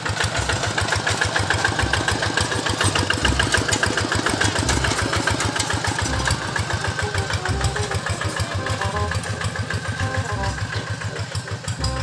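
Single-cylinder diesel engine of a two-wheel hand tractor running steadily while pulling a loaded trailer, with a fast, even firing beat.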